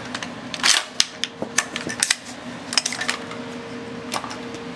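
Sharp metallic clicks and clacks of an AR-style 5.56 rifle's action being worked by hand, its charging handle and bolt drawn to extract a chambered cartridge. About a dozen separate clicks, the loudest about a second in, over a faint steady hum.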